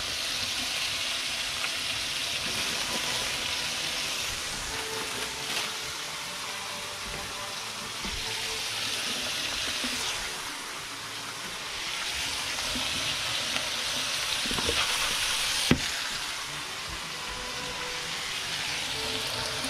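Red-spotted grouper acqua pazza sizzling in a frying pan: a steady hiss that swells and eases several times, with a sharp click about 16 seconds in.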